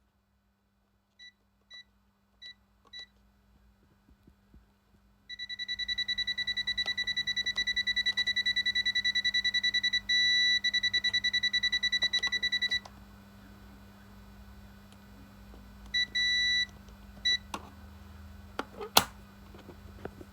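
Intruder alarm keypad beeping: four short key-press beeps, then a fast-pulsing beep for about seven seconds, then one longer beep and a short one, over a steady low hum.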